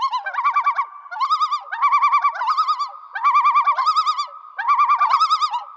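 Electronic warbling sound effect: a string of short trilling bursts about half a second each, wobbling quickly around one pitch over a steady held tone.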